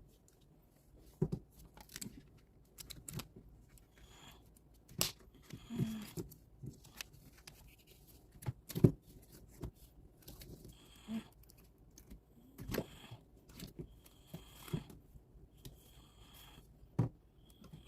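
Packaging and a sticker book being handled and opened by hand: scattered sharp clicks and taps with short rustles and crinkles of plastic and paper, a second or two apart.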